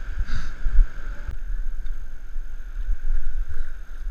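Wind buffeting a kayak-mounted action camera's microphone in gusts, over the wash of choppy sea slopping around the kayak.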